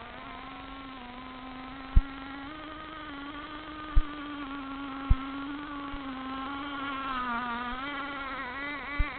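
Radio-controlled model outboard boat's K&B 3.5 cc two-stroke glow engine running out on the water, a steady high buzz whose pitch wavers, dips a little near the end, then rises again. A few sharp clicks close to the microphone about two, four and five seconds in.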